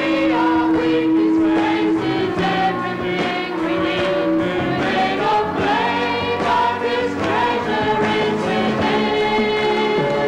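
Live Christian worship song: two female singers leading at microphones over a band of acoustic guitar, electric guitar, drums and keyboard, with the voices sounding like a group singing together.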